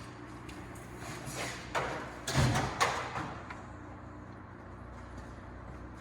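Metal tools being handled at the engine: a few knocks and a scrape, with a heavy thud about two and a half seconds in, as a homemade crank-pulley holding bar is adjusted.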